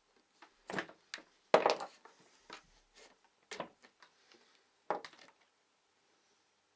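Leather revolver holster and revolver being handled: about half a dozen short knocks and rubbing sounds, the loudest about a second and a half in.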